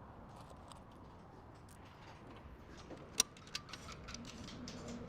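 Light scattered metallic clicks and taps of bolts and steel bumper parts being handled and fitted, with a sharper click about three seconds in.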